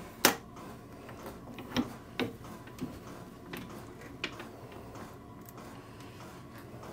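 Several sharp metal clicks and knocks from a dial indicator being set up on a lathe carriage against a ground bar held between centres. The first, just after the start, is the loudest. A faint steady hum runs underneath.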